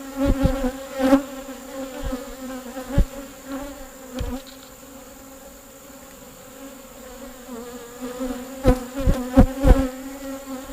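Honeybees buzzing steadily in a low hum around an open hive. Scattered sharp knocks and bumps come in the first second and again in a cluster near the end.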